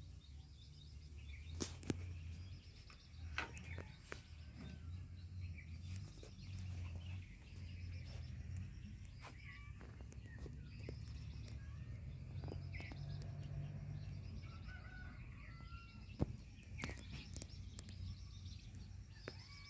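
Birds chirping over a low, uneven hum, with a few sharp clicks or taps, the loudest about two seconds in and again near the end.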